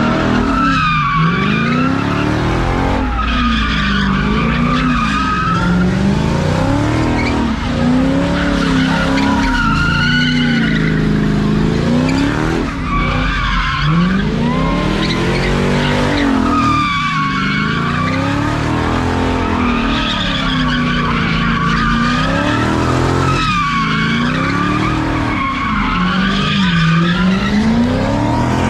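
Lexus LS400's V8 revving up and down about every three seconds as the car spins donuts, its rear tires squealing and screeching on the asphalt the whole time.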